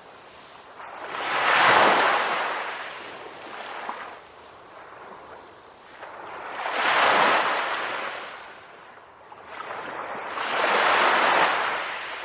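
Ocean waves breaking and washing onto a beach: three swells of rushing surf, cresting about two seconds in, about seven seconds in and near the end, each fading back to a quieter hiss between.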